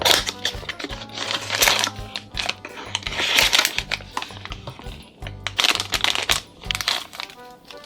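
Background music with a steady bass line. Over it come several loud, rustling bursts of packaging being crinkled and torn open: plastic and foil wrappers of surprise toy packs being unboxed.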